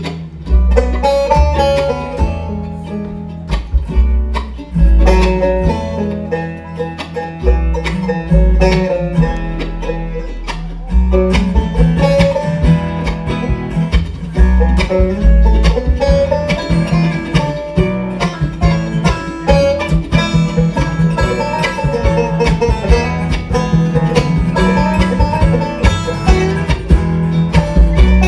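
Bluegrass band playing an instrumental break with no singing: upright bass under rapid plucked strings, with a resonator banjo picking the lead in the later part.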